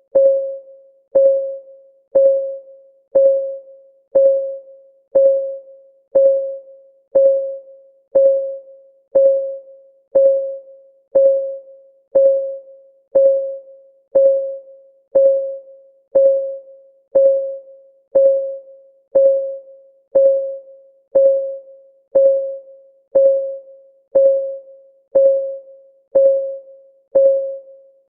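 Countdown timer's ticking sound: a short, pitched electronic tick, like a soft keyboard note, struck once a second and fading quickly each time.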